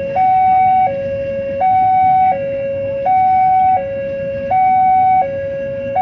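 Two-tone electronic hi-lo siren, alternating evenly between a higher and a lower tone, each held about three-quarters of a second.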